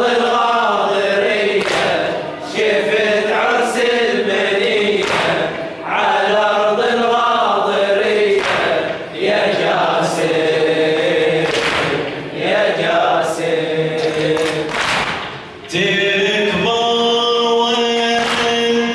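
Men's voices chanting a Shia mourning refrain (latmiya) together, phrase after phrase with short breaks. About three-quarters of the way in, a single male reciter's voice takes over with a drawn-out melodic line.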